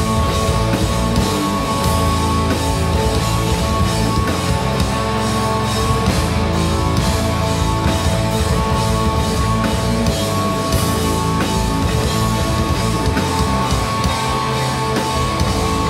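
Live heavy metal band playing loud and dense: distorted electric guitars holding sustained notes over a drum kit keeping a steady beat.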